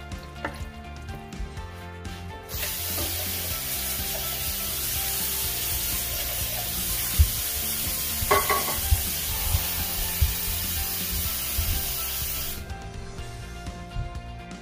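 Wooden spoon stirring and scraping diced tomatoes in a stainless steel stockpot, then a loud, even hiss that starts abruptly about two and a half seconds in, runs for about ten seconds with a few knocks, and cuts off suddenly.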